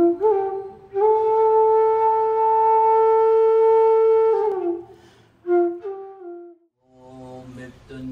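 Solo flute melody: a few short notes, then one long held note that bends downward as it ends, and a short falling phrase. Near the end, low group chanting of a mantra begins.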